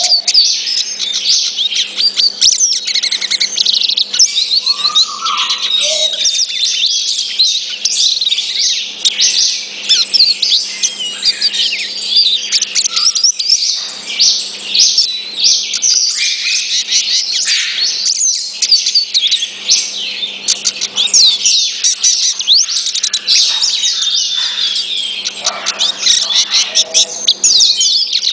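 Hooded siskin singing a long, unbroken twittering song of rapid high trills and chirps, with a few lower call notes mixed in.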